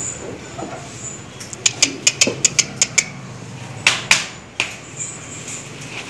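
Sharp clicks and knocks as a lying ox is made to get up and rises on a plank floor. A quick run of about eight clicks starts about one and a half seconds in, and a few louder knocks come about four seconds in.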